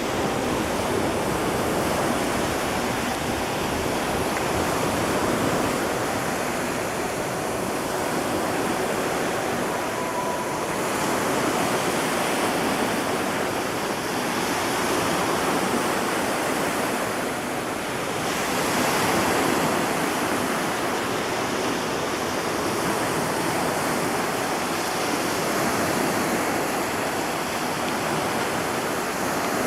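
Steady rushing of wind and water, swelling and easing every six or seven seconds.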